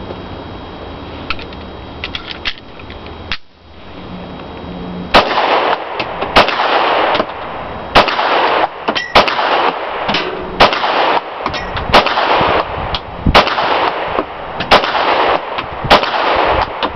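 A 9mm IMI Baby Eagle (Desert Eagle Compact) semi-automatic pistol fired in a steady string of more than a dozen shots, beginning about five seconds in, roughly one shot every half second to second. A few light handling clicks come before the first shot, and a loud rushing noise fills the gaps between shots.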